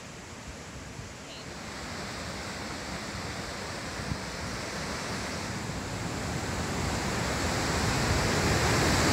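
Whitewater of a glacial river rushing through rapids, a steady rushing noise that grows louder toward the end.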